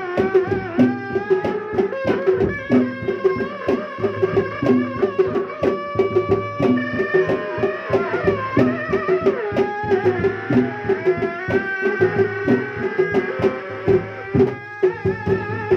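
Sundanese reak ensemble playing. A shrill tarompet (double-reed shawm) carries a wavering, ornamented melody over a dense, steady beat of dogdog frame drums, with a deeper drum stroke about every two seconds.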